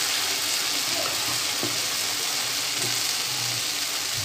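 Medu vada (urad dal batter fritters) deep-frying in hot oil in a pan, a steady even sizzle, with a few soft low knocks.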